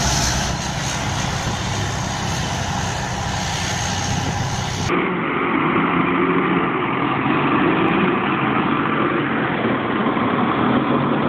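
Heavy vehicle engines running steadily. About five seconds in the sound cuts to another recording, duller, with a steadier engine hum.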